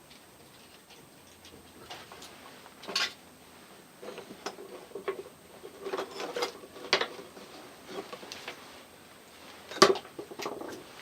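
Irregular clicks, taps and knocks of tools and a workpiece being handled on a workbench, with one sharp, louder click near the end; no rotary tool is running.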